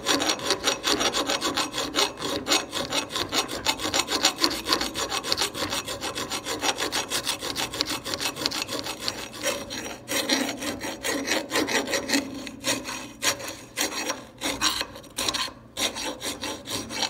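Round hand file being drawn back and forth in the eye of a steel axe head held in a bench vise, a steady run of quick rasping strokes with a few short pauses in the second half. The file is chamfering the burred, hammer-marked lower edge of the eye so the handle will seat properly.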